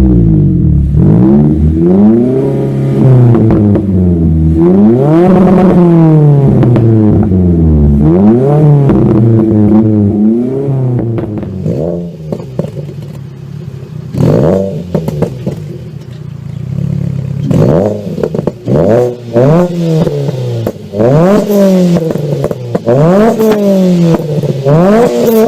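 Car engine revved again and again, its pitch climbing and falling every couple of seconds. When the throttle is released the exhaust pops and crackles, with the sharp cracks thickest in the second half.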